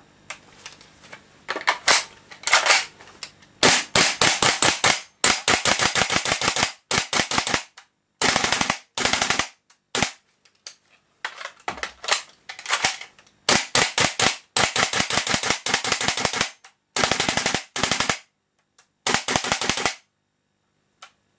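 WE SCAR L gas blowback airsoft rifle firing. It starts with a few single shots, then fires a long series of rapid full-auto bursts with short gaps between them. The rate of fire is raised by its shortened bolt travel from a Super Rapid Fire buffer kit.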